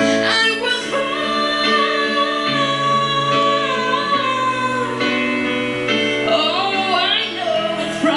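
A woman's solo voice holding a long sung note over sustained piano chords, then a quick melismatic run near the end.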